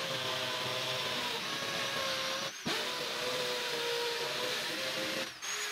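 Handheld electric drill running under load as it bores holes into a wall, its motor whine wavering in pitch. The trigger is let off and squeezed again for a moment about halfway through, and once more near the end.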